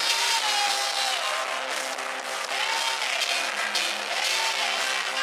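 A woman singing three long, gliding phrases into a microphone, with a crowd cheering and applauding and a band holding steady chords underneath.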